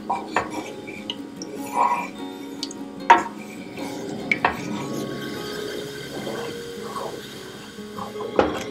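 Wooden spatula stirring a thin wheat-starch and water mixture in a stainless steel saucepan, scraping the pan and knocking against it now and then, the loudest knock about three seconds in. The starch is being heated toward a thick paste. Soft background music plays underneath.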